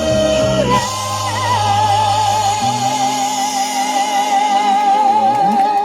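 A female singer holds one long, high note with a steady vibrato over a sustained backing-track chord, the closing note of a pop song; the low bass drops out partway through and the note ends just before the end.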